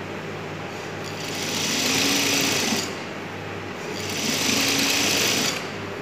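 Industrial sewing machine stitching cotton fabric in two runs of about two seconds each, the motor speeding up and then slowing at each run, with a steady motor hum between them.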